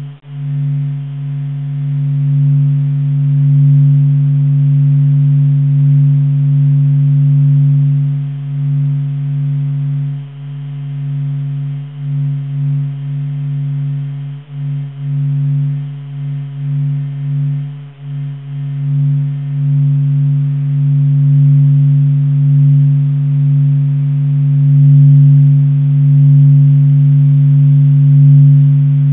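The Sun's natural vibrations, captured by NASA and made audible: a low pulsing hum of deep steady tones with fainter higher tones above. It dips and swells in loudness through the middle.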